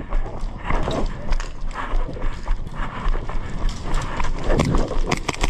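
Rapid, irregular clicks, knocks and thuds, several a second, from airsoft close-quarters play.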